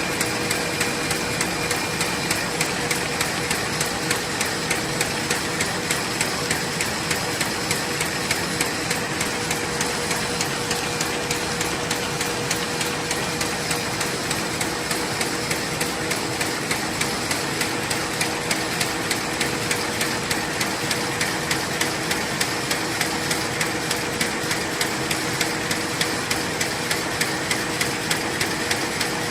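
Fully automatic paper bag machine running at high production speed: a steady, fast, regular mechanical clatter of knocks over a constant hum.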